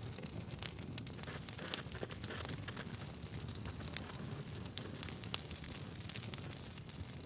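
Burning logs crackling and popping with irregular sharp snaps over a steady low rush of the flames.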